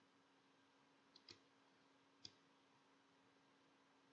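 Near silence with a faint steady hum, broken by a few faint computer mouse clicks: a quick pair about a second in and a single click a little after two seconds.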